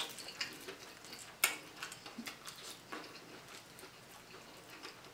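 Crispy fried croaker being picked apart by hand and eaten: faint scattered crackles and small clicks of the fried crust and bones, with one sharper snap about a second and a half in.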